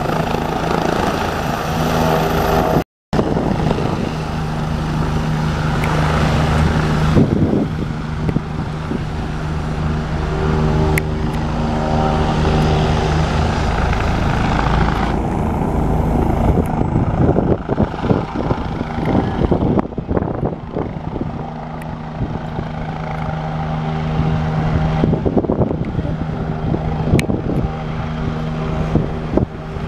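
Bell 429 twin-turbine helicopter lifting off and flying away, its rotor and turbines running steadily and loud. The sound cuts out for a moment about three seconds in and turns duller after about halfway as the helicopter climbs off.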